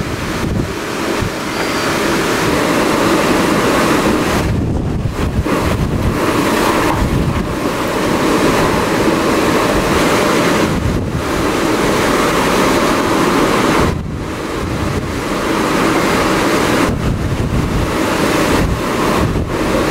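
Super typhoon winds blowing hard and continuously, with loud surf crashing beneath them. The roar eases for a moment several times between gusts.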